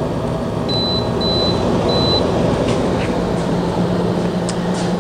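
18,000 BTU air conditioner running with its fan on high speed: a steady blowing hum that gets a little louder about a second in. Three short high beeps from its control panel come just before that, as the speed is set.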